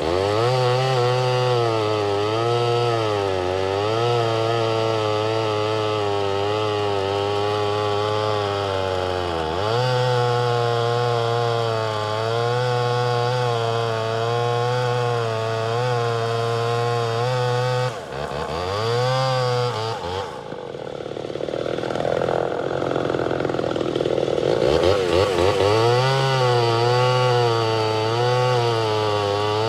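Two-stroke chainsaw running at full throttle while cutting through a log, its engine note sagging under load and recovering several times. Near the two-thirds mark the revs drop and climb again, then go lower and rougher for a few seconds before the saw is back at full cutting speed.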